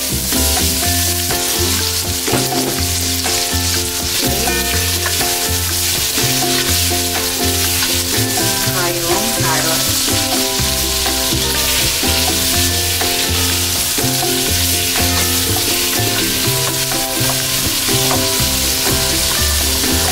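Diced potatoes and carrots sizzling as they fry in oil in a pot, stirred with a spatula, over background music with a steady bass pulse.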